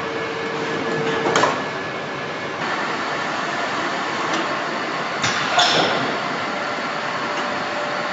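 Car assembly-line machinery: a steady mechanical din with sharp metallic clanks, one a little over a second in and a double clank around five seconds in.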